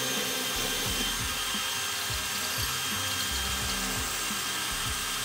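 Electric drill running steadily under load, boring a large hole through the bare metal floor of a gas bottle locker for a gas dropout vent.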